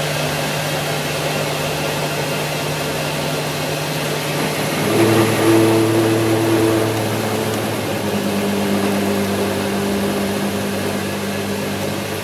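Metal-working lathe running, with a steady motor hum over a hiss. Its tones shift to a new set about five seconds in.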